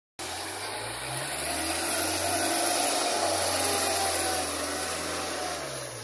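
Skid steer loader's diesel engine running, its pitch rising a little about a second in and dropping back near the end, with a broad hiss over it.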